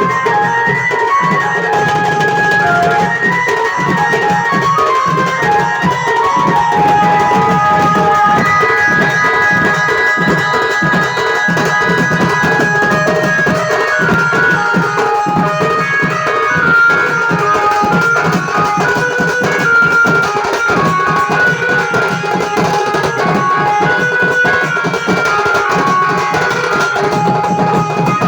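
Instrumental Sambalpuri melody: a keyboard tune of short stepping notes played over fast, steady hand-drum percussion.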